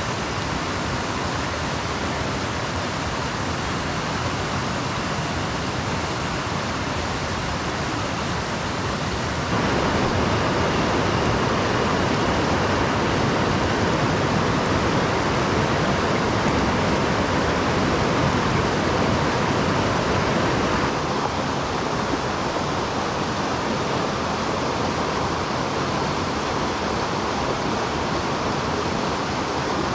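Rushing water of a mountain stream, a steady rush that gets louder about ten seconds in and drops back about twenty seconds in.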